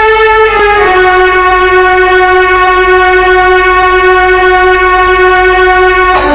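Hardcore techno played at a live set, in a beatless stretch: one loud held note with a string-like sound, which steps down in pitch about a second in and changes again near the end.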